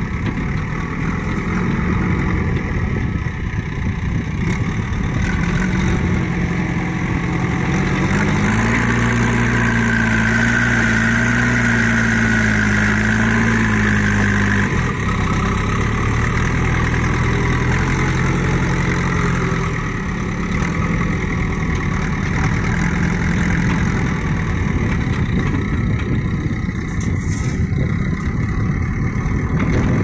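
JCB 3DX backhoe loader's diesel engine running while working the loader. About a third of the way in it revs up under load for several seconds with a high whine, then drops back abruptly to a lower, steady run.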